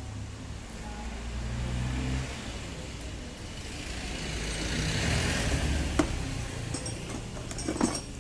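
A road vehicle's engine passing by, building to its loudest about five seconds in and then fading. A sharp click about six seconds in and a short clatter of clicks near the end.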